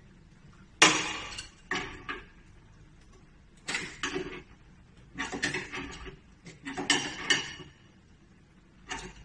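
Half a dozen sharp metallic clanks at irregular intervals: an adjustable wrench knocking against brass valves and braided stainless hoses while pipe fittings are tightened.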